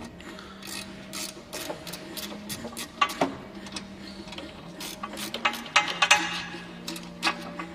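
Sharp, irregular metallic clicks and knocks of a 10mm spanner working the bolts on a spin bike's brake pad assembly, with louder knocks about three seconds in and again around six seconds, over a steady low hum.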